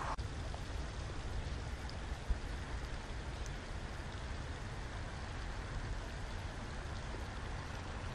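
Steady outdoor noise, a rumble with a hiss like wind and running water on a head-mounted action camera's microphone, with one short knock about two seconds in.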